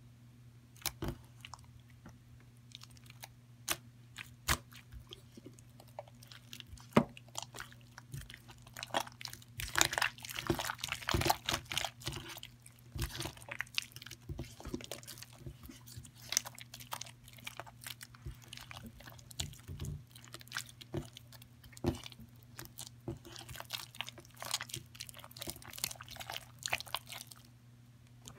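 Sticky glitter slime being kneaded and squished by hand, giving irregular wet clicks and crackly pops, densest for a few seconds about ten seconds in. A faint steady low hum sits underneath.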